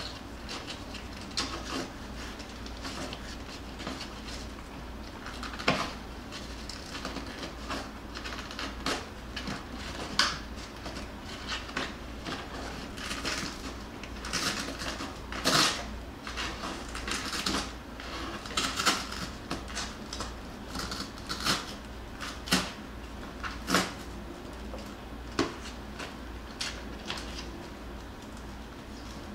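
Jackabee puppies shifting and scratching about in a cardboard box lined with a burlap sack: irregular light knocks, scrapes and rustles, the loudest about halfway through, over a steady low hum.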